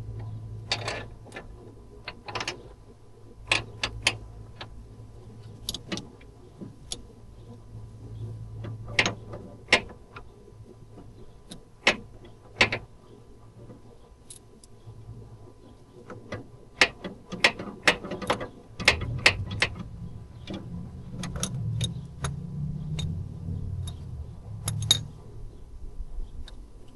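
Hand tools clicking and clinking against metal fittings while the steering rack's bolts are worked, in sharp, irregular clicks over a steady low hum. The clicks grow busier in the second half, where a low rumble joins them.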